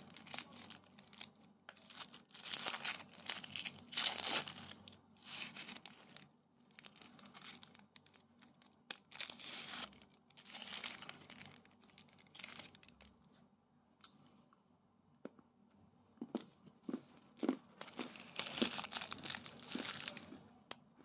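Clear plastic wrapper of a pressed military dry ration bar crinkling and tearing as it is peeled open, in several bursts with quiet gaps. A few short, sharp crunches as pieces of the dry bar are broken off.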